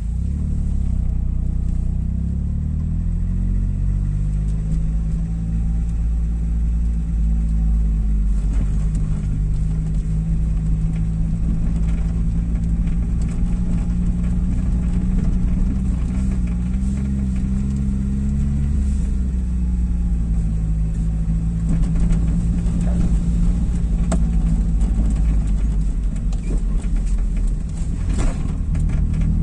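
Car engine and tyre rumble heard from inside the cabin while driving over brick-paved streets, the engine note rising and falling as the car speeds up and slows down.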